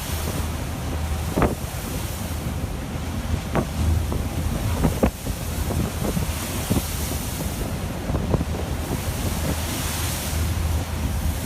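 Wind buffeting the microphone and heavy seas washing around a boat in rough water, over a steady low drone. Irregular sharp knocks and bangs come every second or two.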